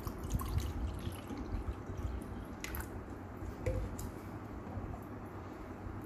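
Bottled green tea poured over ice into a stainless steel mug, splashing and then dripping. A few sharp clicks come a little past halfway through.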